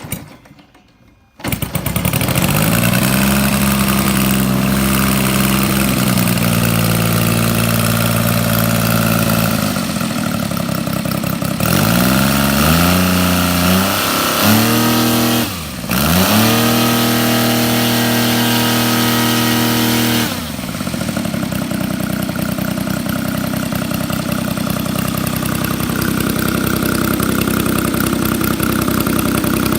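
Kolm IL230 model aircraft engine driving a four-blade propeller through a customised Zimmermann silencer: it starts about a second and a half in and runs up. It is throttled up and down several times and held at high speed for a few seconds, then drops back to a steady idle for the last third.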